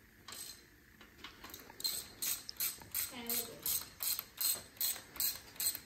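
Hand socket ratchet clicking in quick, even strokes, about two or three a second, starting about two seconds in, as the bolts of an engine cover plate are run down.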